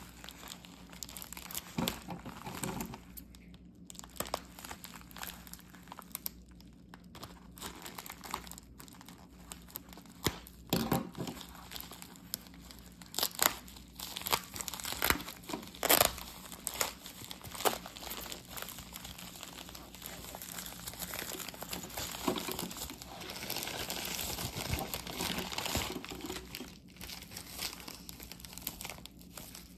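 Padded plastic mailer crinkling and crackling as hands handle it and tear it open, with irregular sharp snaps of the plastic, busiest about halfway through.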